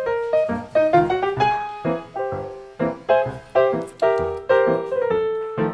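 Background music: a piano playing a quick melody of struck notes, each fading after it sounds.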